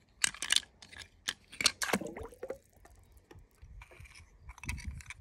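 Scattered small clicks and soft splashy sounds of a die-cast toy car being handled and dropped into pool water.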